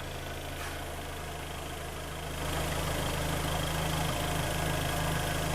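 Freshly rebuilt Kia Sportage four-cylinder petrol engine idling steadily while warming up and running in its new oversize pistons. About two seconds in, the sound gets louder with a steady hum added, as the drivetrain is put in gear and the wheels spin on the lift.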